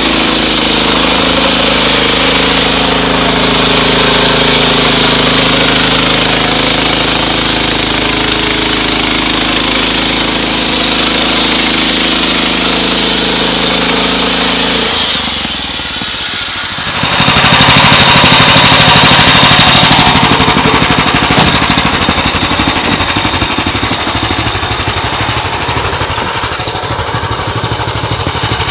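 Engine-driven homemade circular-blade sawmill running, its blade ripping a log into boards. The sound holds steady for about fifteen seconds, dips briefly, then turns louder and rougher for a few seconds before slowly easing off.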